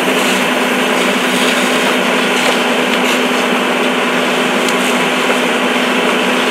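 A motor running steadily: a constant low hum under a loud, even rushing noise.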